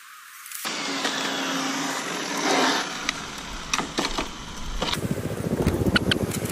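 Arrma Infraction RC car with a brushless motor running on the road, its motor and tyre noise rising to a peak about two and a half seconds in. A few sharp clicks follow, then a rapid rough rumble near the end.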